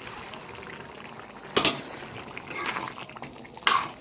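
Food cooking in a pot with a steady bubbling hiss, broken by two sharp knocks, one a little after a second and a half in and one near the end.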